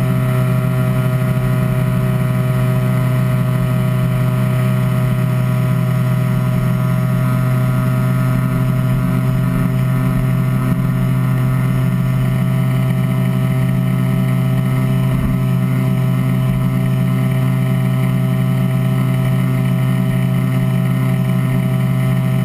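49cc Minarelli two-stroke scooter engine (1E40QMB) breathing through a Leo Vince ZX tuned expansion-chamber exhaust, cruising at a steady high RPM with an even drone that holds one pitch. The engine is held near its peak of about 7,900 RPM, at the top of its narrow 7,500–7,900 RPM powerband.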